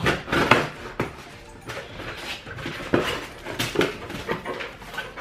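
Cardboard shipping box being opened by hand: an irregular run of rips, scrapes and rustles from the tape and flaps.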